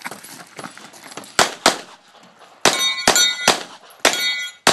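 Rapid pistol fire, about seven shots in roughly three and a half seconds. After most of the shots comes the ring of struck steel targets.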